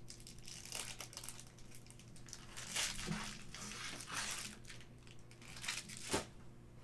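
Clear plastic wrapping crinkling and crackling in irregular bursts as it is peeled off a stack of trading cards, with one sharp click near the end.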